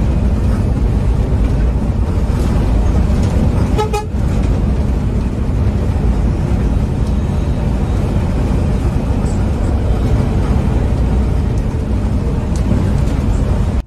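Scania coach under way: a loud, steady engine and road rumble.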